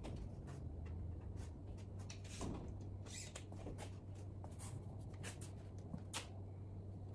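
Scattered light knocks, taps and rustles of a wooden board and a cordless drill being handled against a wooden frame, over a steady low hum.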